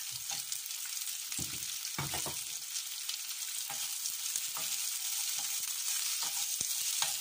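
Sliced onions sizzling in hot oil in a nonstick wok while a wooden spoon stirs them, with a scatter of light knocks and scrapes as the spoon hits the pan.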